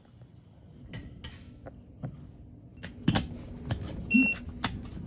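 Digital torque wrench on the wheel's hub nuts: a few clicks and knocks as the socket is fitted and worked, then a short electronic beep about four seconds in, the wrench signalling that the set torque has been reached.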